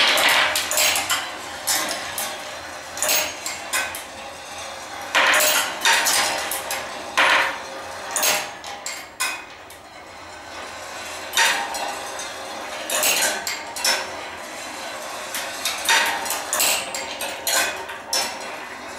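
Rolling-ball marble machine of brass wire: glass marbles rolling along the wire rails and clinking against the metal and each other in irregular sharp clicks, some in quick clusters, with a light ringing after the strikes.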